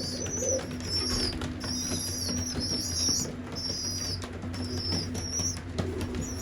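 Young racing pigeons in a loft squeaking: a run of short, high peeps repeating about once or twice a second, the begging calls of squeakers, with a few wing flaps. A steady low hum runs beneath.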